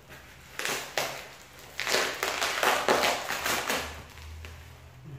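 Plastic wrapping and packing tape on a parcel being torn and crinkled by hand, in two bouts of rustling and crackling; the longer, louder one runs from about two to four seconds in.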